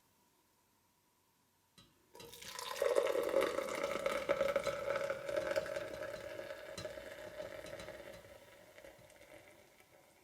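Hot, just-boiled dark beer being poured from a pot into a container: a short knock, then about two seconds in a splashing, fizzing pour that is loudest at first and slowly tails off.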